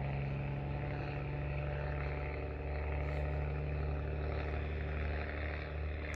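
Steady low hum of an engine running at an even pitch, unchanging throughout.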